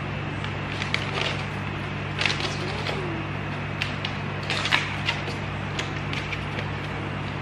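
Crinkling and rustling of plastic treat bags and packing paper as items are lifted out of a box, in short irregular bursts with a few light clicks and knocks. A steady low hum runs underneath.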